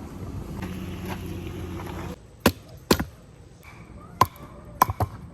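A steady low rumble that stops abruptly, then five sharp knocks or strikes at uneven intervals.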